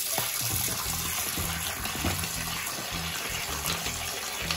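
Water spraying steadily onto an air conditioner's indoor coil and running off, rinsing the dish-soap solution out of the fins.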